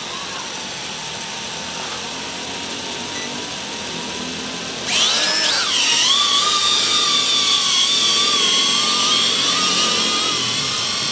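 XK X300 quadcopter's motors and propellers whining steadily at low throttle. About five seconds in the whine jumps sharply louder and higher as the drone takes off, then settles into a steady, louder whine in flight.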